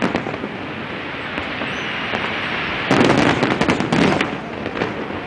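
Aerial fireworks display: a dense volley of bangs and crackles about three seconds in, lasting about a second, over a steady wash of distant fireworks noise.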